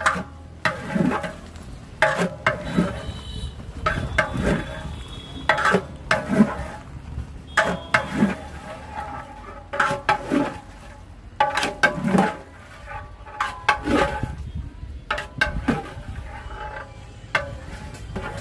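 A long metal ladle scraping and knocking against the inside of a large brass cooking pot (pital handi) while a big batch of raw mutton is stirred. The strokes come roughly once or twice a second, each with a short metallic ring.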